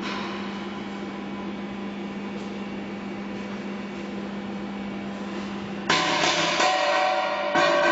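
Steady whirring hum of running machinery with a constant low drone. About six seconds in, background music with drums starts abruptly over it.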